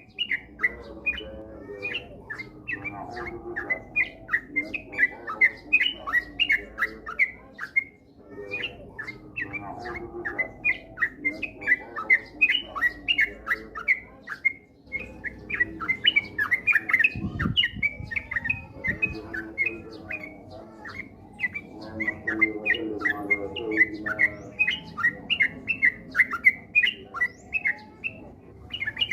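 Yellow-vented bulbul (trucukan) singing: a fast, continuous run of short bubbly chirps, several a second, in long phrases with brief pauses.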